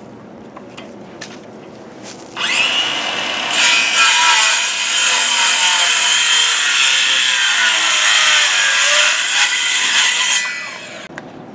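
A power saw cutting wood. It starts about two seconds in and gets louder a second later. Its motor pitch sags under load near the end, and it stops shortly before the end.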